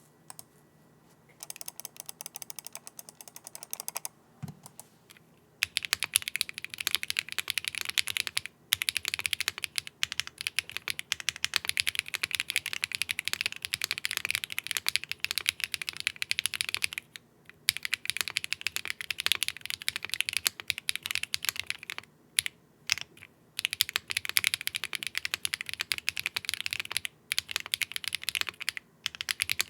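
Mode Tempo mechanical keyboard with HMX Macchiato linear switches on a carbon fibre plate and GMK keycaps being typed on. Fast, continuous typing starts about five seconds in and carries on with a few brief pauses.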